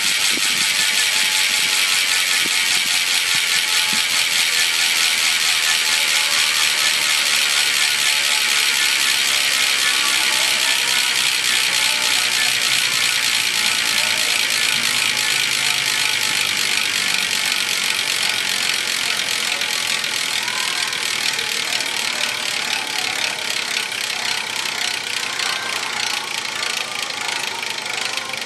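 DT Swiss 240s rear hub's star-ratchet freehub buzzing as the wheel freewheels, a very fast, loud run of clicks that fades slowly as the wheel spins down.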